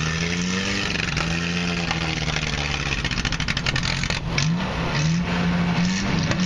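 Lifted pickup truck's engine revving as it drives through mud, its pitch rising and falling several times.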